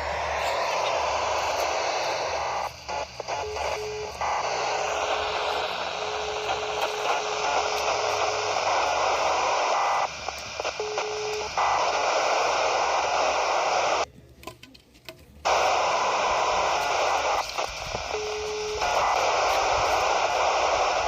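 Noisy UHF military satellite (satcom) channel at 266.950 MHz heard on a handheld scanner: a loud rushing hiss with a faint, low, steady telephone dial tone that comes and goes in stretches. The signal dips several times and cuts out completely for about a second and a half past the middle.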